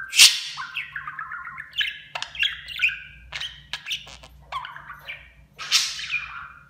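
Budgerigar chattering and warbling in a fast string of short chirps and trills, with a loud harsh chirp about a quarter second in and another near the end.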